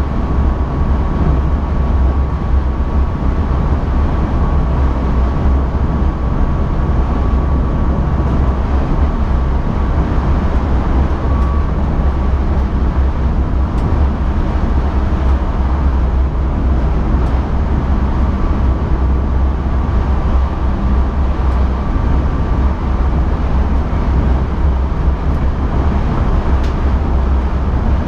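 Steady low rumble of an NS ICM electric multiple-unit train running along the track, heard from inside the driver's cab. A faint, steady high tone comes in and out over it.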